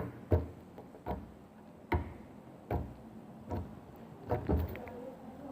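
Microwave-softened slime squeezed and pressed by hand for ASMR, giving a series of short wet pops and clicks, roughly one a second.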